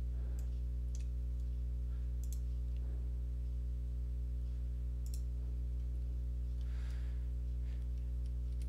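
A few scattered computer mouse clicks over a steady low electrical hum.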